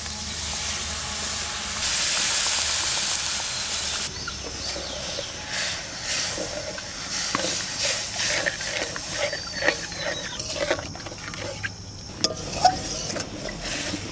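Sour curd poured into spice paste frying in oil in a steel wok, sizzling loudly for about the first four seconds. Then a spatula stirs and scrapes around the pan in quick irregular strokes while the curry sputters.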